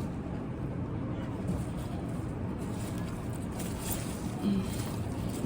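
Hands rummaging through potting soil in a fabric grow bag, a faint scattered rustling, over a steady low rumble.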